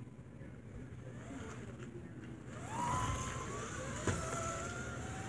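Slot car's small electric motor whining up to speed about halfway through, then running with a steady high whine, with one sharp click about a second later.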